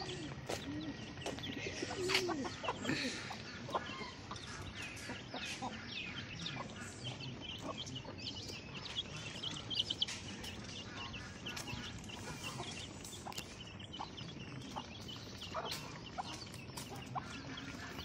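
A flock of desi chickens clucking as they feed on scattered grain: many short, overlapping clucks.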